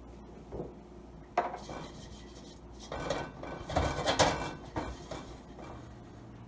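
A spatula scraping and rubbing around the inside of a nonstick wok, spreading a little oil as the wok heats. A sharp knock comes about a second and a half in, and the loudest spell of scraping falls between about three and five seconds in.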